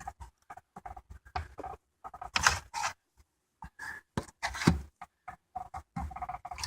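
Plastic dash parts and wiring being handled and fitted by hand: irregular light clicks, knocks and rustling.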